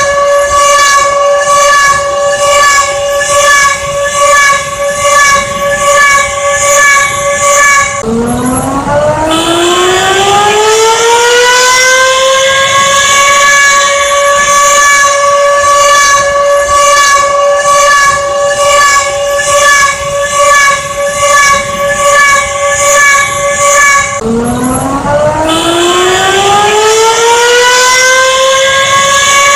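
Emergency alarm siren sounding loudly: a steady multi-tone wail that drops away twice, each time winding back up over about four seconds to its held pitch.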